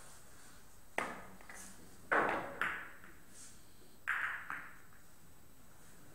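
Billiard cue and balls on a carom table: a cue strike about a second in, then four sharp clacks of the balls with short ringing tails, two just after two seconds in (the loudest) and two just after four seconds in.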